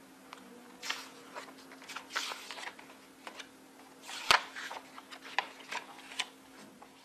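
Irregular small clicks and rustles over a steady low hum, with one sharper, louder click about four seconds in.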